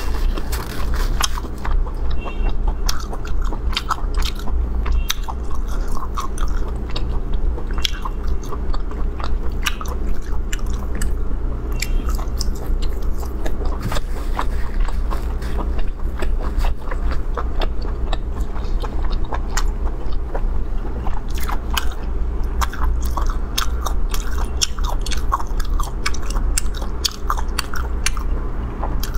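Close-miked chewing and biting of raw arctic surf clam sashimi: a continuous run of wet, crisp clicks and crackles from the firm clam flesh, over a steady low hum.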